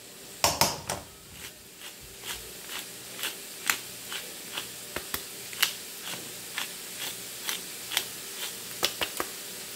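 Hand-twisted wooden pepper mill grinding black pepper: a steady run of crisp clicks, about two a second, with a louder knock about half a second in.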